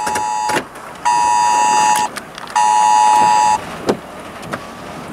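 Wireless Emergency Alert attention tone from a phone, a loud two-pitch alarm. The end of its long first blast comes about half a second in, followed by two one-second blasts with half-second gaps: the signal of an emergency warning, here a tornado warning. A few faint knocks follow near the end.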